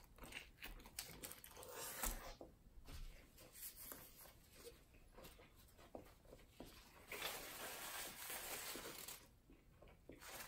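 Faint close-up chewing of a rib sandwich, with wet mouth clicks and smacks. About seven seconds in comes a couple of seconds of paper napkin rustling as hands are wiped.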